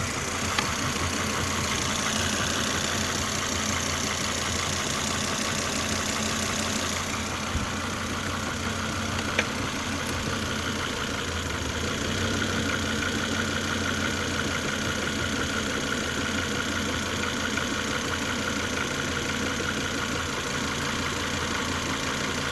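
A 2004 Volvo V70 idling steadily, with two brief sharp knocks: one about half a second in and one about nine seconds in. A steady mid-pitched tone runs through the second half.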